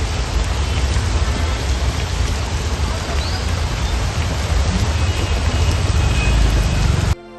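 Heavy rain pouring down: a dense, steady hiss with a strong low rumble beneath it. It cuts off abruptly near the end as music begins.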